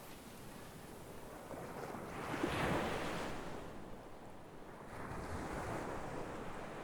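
Sea waves breaking and washing up the shore, one wave peaking about two and a half seconds in and another swelling near five seconds.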